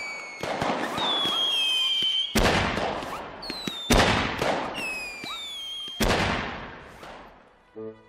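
Fireworks going off: whistling rockets, each followed by a loud bang and crackling, with three big bangs about a second and a half to two seconds apart. The sound dies away near the end.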